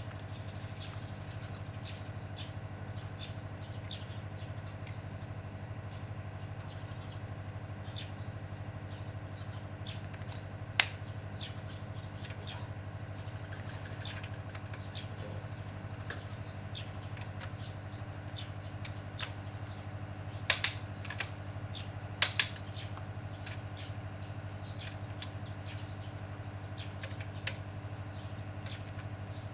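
Scattered light metallic clicks and taps of hand tools on engine parts during assembly, with one louder clink about a third of the way in and two short clusters of sharp clinks about two-thirds through, over a steady hum.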